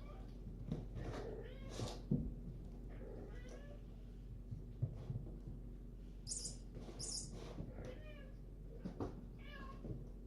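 Kittens meowing, a series of short separate meows over a low steady hum, with two brief hissing bursts in the middle.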